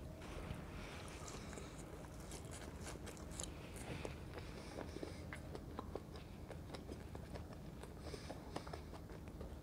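Close-miked chewing of crispy fries dipped in mayonnaise, with many small, sharp crunches.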